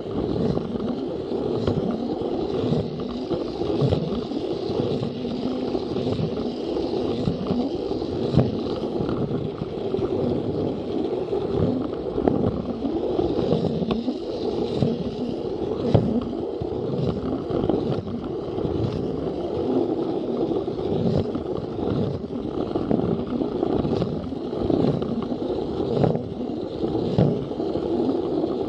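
Takara Tomy Plarail battery-powered toy train running along plastic track, heard from a camera riding on the train: a steady motor-and-gear whir with repeated clacks as the wheels pass over the track joints.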